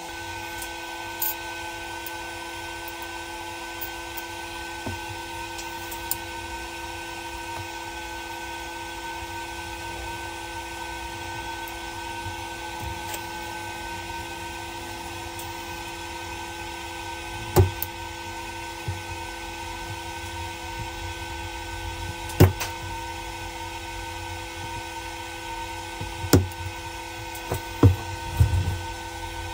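Glitter 811H capacitor-discharge spot welder firing through its handheld pens, giving a few sharp snaps in the second half as each pulse welds 0.3 nickel strip onto battery cells at power setting 30. A steady hum with a few fixed tones runs underneath.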